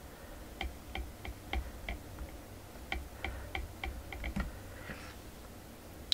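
A series of light, evenly spaced clicks, about three a second, in two runs with a pause of about a second between them.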